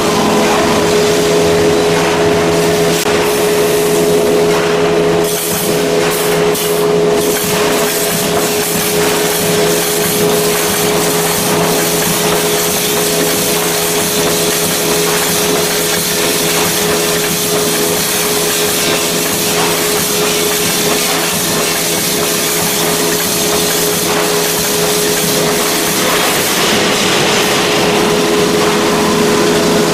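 Wire mesh welding machine running: a steady machine hum under a dense mechanical noise.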